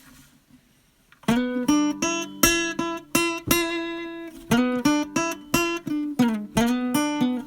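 Closing music: plucked and strummed acoustic guitar chords, starting about a second in after a brief quiet.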